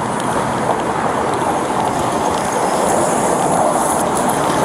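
Steady road noise from passing traffic at a busy intersection, picked up by a body camera's microphone.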